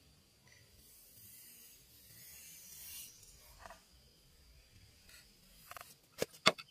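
Faint scraping of a knife blade shaving thin bamboo strips. Near the end a machete blade knocks sharply a few times as it chops down onto a wooden board.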